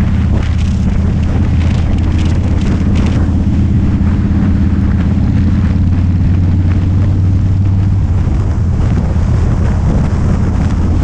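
Motorcycle engine running steadily at cruising speed, with heavy wind noise buffeting the microphone. The engine's low note eases slightly about eight seconds in.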